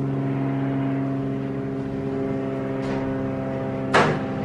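Steady machine-like hum made of several unchanging tones, with a sharp click or knock near the end.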